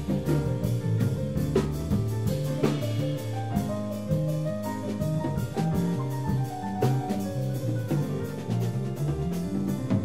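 Live small-ensemble music with jazz leanings: an electric bass line moving under bowed strings, over a steady beat of drum-kit strokes.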